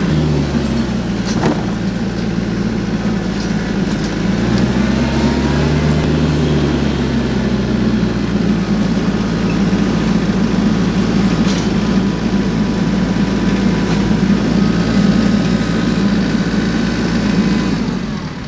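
Motor vehicle engine running steadily, with a brief rise and fall in pitch about four to seven seconds in, fading out near the end.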